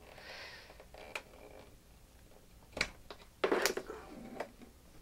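Handling noises on a workbench: a few separate clicks, then a short louder cluster of knocks and rattles near the end as a mains plug is pulled out of a plug-in power meter's socket.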